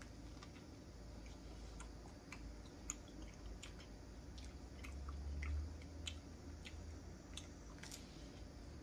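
A person chewing a bite of cheesy garlic bread: faint, scattered mouth clicks and smacks. A brief low rumble comes about five seconds in.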